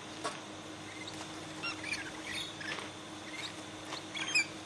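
Wild rosellas chirping and squeaking as they crowd in to be hand-fed: scattered short, high chirps, with a brief burst of sharper squawks near the end.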